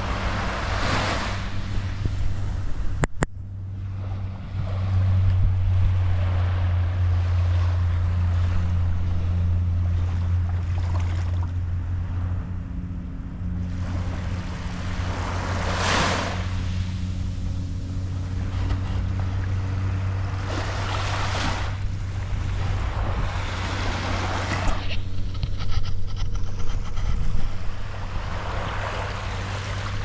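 Small waves breaking and washing up a sandy beach, the wash swelling and fading at irregular intervals over a steady low rumble. A single sharp click about three seconds in.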